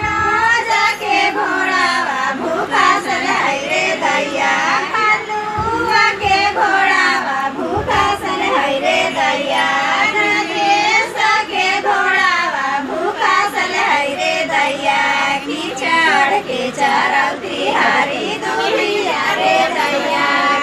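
Several high-pitched women's voices singing together without a break.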